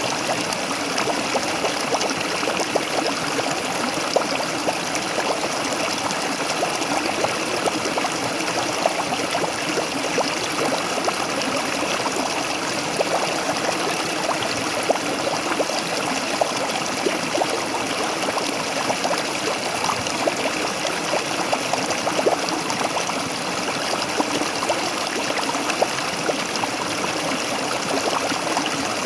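A small waterfall's water pouring and splashing steadily, a continuous rush with many small trickling splashes.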